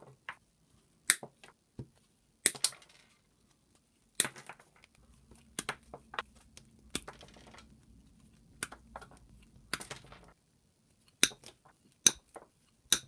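Hand-held combination pliers cutting through high-voltage cable with thick rubbery insulation and a thin wire core, a sharp snap at each cut, the snaps coming a second or so apart, with light handling rustle between them.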